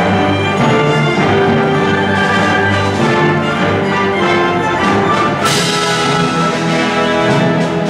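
Live orchestra of strings, flute and brass playing continuously, with a bright crash ringing out a little past halfway.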